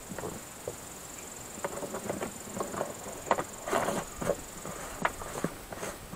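Scattered plastic clicks and knocks as the lid is fitted onto the filter housing of a pool filter pump, busiest about three to four seconds in. A steady high chirring of insects runs underneath.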